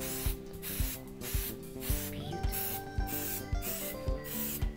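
Background music with a steady beat, over an aerosol spray-paint can hissing in short bursts.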